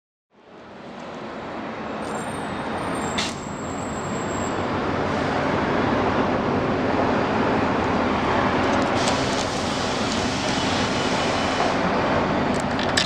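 Steady road traffic noise that fades in at the start, with a sharp click about three seconds in and a few small clicks near the end.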